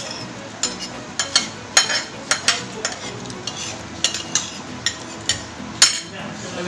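Metal fork scraping and clinking against a plate while eating: about a dozen sharp, unevenly spaced clicks and scrapes.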